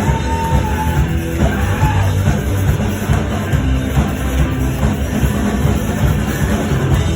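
Loud rock music playing steadily, with heavy low end.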